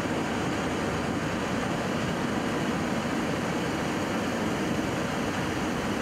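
Steady rushing noise in the cockpit of a Boeing 737-800 during its landing rollout, with its CFM56 engines in reverse thrust and the wheels running along the runway as the aircraft slows.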